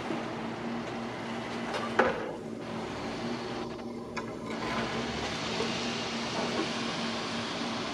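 Bobcat E19 mini excavator running with a steady engine hum, with a single sharp knock about two seconds in.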